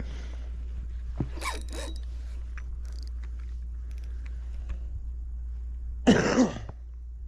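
A man's short non-word vocal sounds: a brief grunt about a second and a half in, then a louder cough-like outburst near the end, over a steady low rumble.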